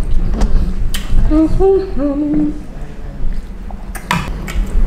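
A woman humming a few short notes through closed lips while she chews, about a second in. There are a few sharp clicks before and after, over a steady low background hum.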